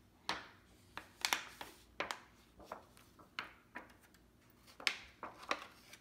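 A sheet of gold acetate being handled and turned over by hand: irregular sharp crackles and taps, the loudest just over a second in and again near five seconds.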